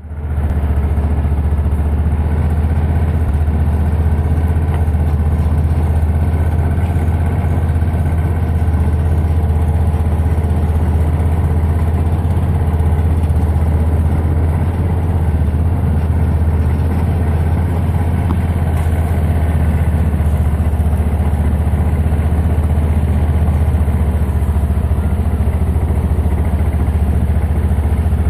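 A golf cart's small engine running steadily as the cart rolls along, a constant low drone.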